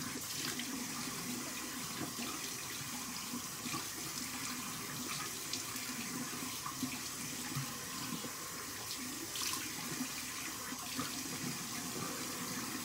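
Sink tap running steadily, turned all the way up with the hot water left running until it warms.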